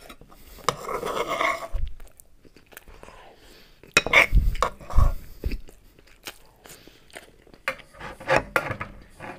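Close-up eating sounds: a man chewing a mouthful of buckwheat with sprats in tomato sauce, while a metal spoon clicks against the clay bowl and the open tin.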